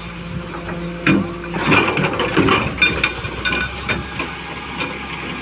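Excavator engine running steadily, with a clatter of sharp knocks and clanks from the machine working.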